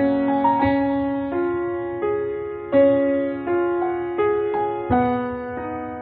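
Background music: slow, gentle piano, single notes and chords struck about every two-thirds of a second and left to ring and fade.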